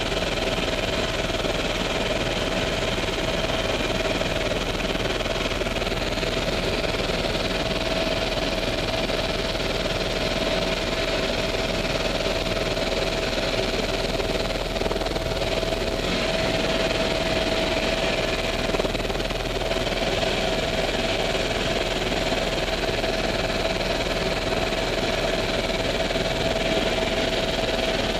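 Helicopter engine and rotor noise heard from inside the cabin in flight: a steady drone with a constant high whine running through it.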